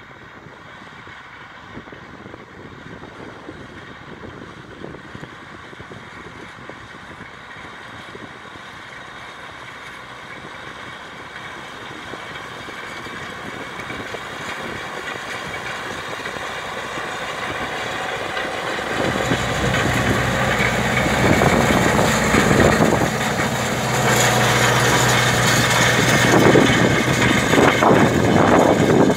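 Tractor engine running steadily as it pulls a Güttler Greenmaster prism roller with tine harrow across a field, growing louder as it approaches. For the last third it is close, with a steady engine hum and irregular rattling knocks from the roller and implement.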